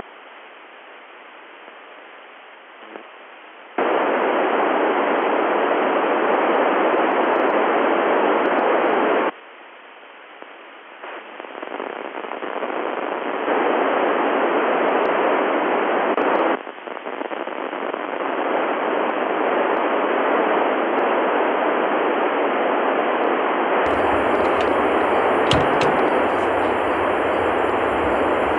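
FM satellite downlink static from the TEVEL-7 amateur satellite, received on an Icom transceiver: loud, even hiss that drops to a much quieter hush twice, at the start and again about nine seconds in, before building back up. The quieted stretches sound as if somebody has keyed up the satellite without transmitting any voice, which the operator suspects may be someone running D-Star digital voice through it. Near the end a low hum joins in.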